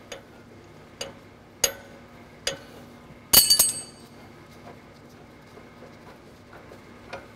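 Steel-on-steel clinks and taps from the lower shock through-bolt being worked out of the front strut mount, a few single clicks followed by one louder, ringing metal strike a little over three seconds in.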